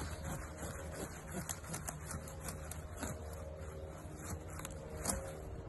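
Savoy cabbage leaves rustling and snapping as they are pulled and cut from the plant, a run of small irregular crackles and clicks over a low steady hum.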